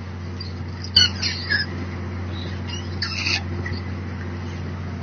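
Steady low mechanical hum of the squid-fishing boat's machinery, with two short, sharp squeaky bursts, one about a second in and another about three seconds in.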